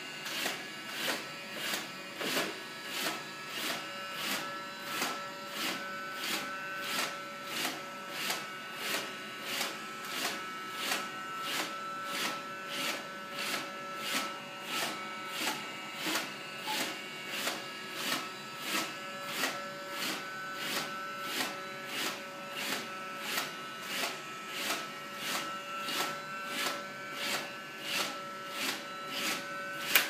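iRobot Roomba robot vacuum running, its motors making a steady whine under a sharp tick that repeats evenly a little under twice a second.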